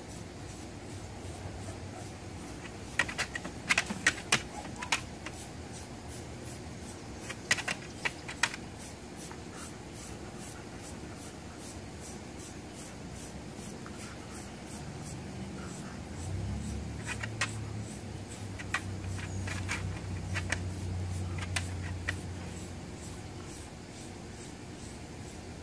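Stainless-steel deshedding tool raking through a dog's short double coat, heard as clusters of short, sharp scratchy clicks in strokes. A low steady hum runs underneath from about two-thirds of the way in until near the end.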